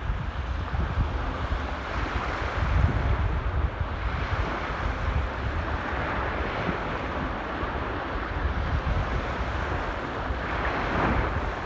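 Sea waves washing in steadily, with surges that swell midway and again near the end, and wind rumbling on the microphone.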